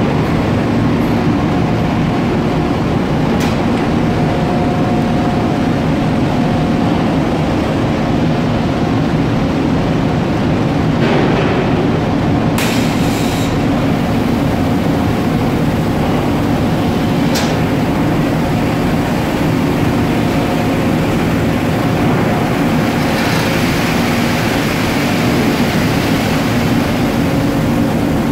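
Dieffenbacher multi-opening hydraulic water press for OSB and its chain-driven loading cage working as strand mats are loaded and the press closes: a loud, steady mechanical rumble and hum, broken by sharp metallic clanks a few times and a stretch of hiss about 23 seconds in.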